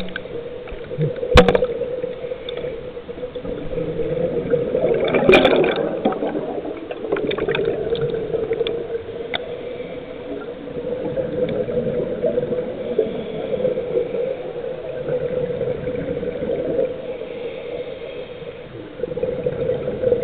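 Underwater sound picked up by a camera in its housing: a steady low hum with scattered clicks and knocks, a sharp knock about a second and a half in, and a gurgling rush of bubbles about five seconds in.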